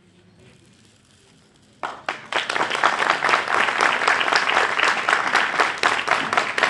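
Audience applause: after a quiet start, many hands break into clapping about two seconds in and go on densely and steadily.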